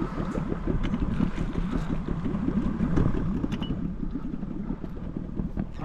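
Low, uneven rumble from a small fishing boat on the water, with rapid irregular flutter.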